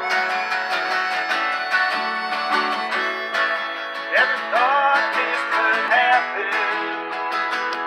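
Several acoustic guitars strumming and picking a song together. A harmonica joins about halfway through with bending, wailing notes.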